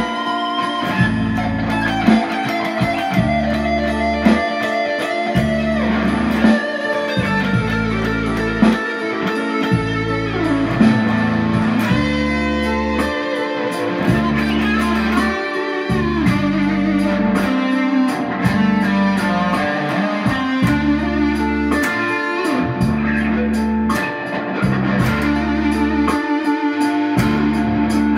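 Electric guitar, a Gibson Les Paul Studio, playing a blues lead with bent notes and fast runs. It plays over a backing track with a repeating bass line and a steady beat.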